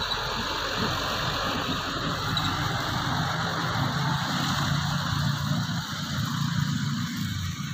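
Road traffic going past close by: the steady rumble of vehicle engines and tyres, with an engine hum from a passing truck or pickup coming in after about two seconds.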